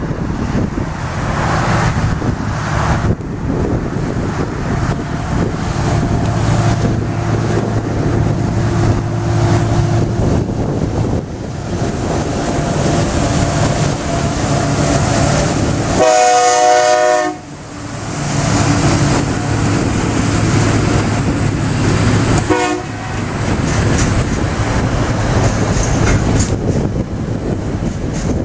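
Diesel-electric freight locomotives working hard up a grade, engines running heavily under load, followed by loaded container wagons rolling past. A little past halfway a horn sounds for just over a second, with a short second toot a few seconds later.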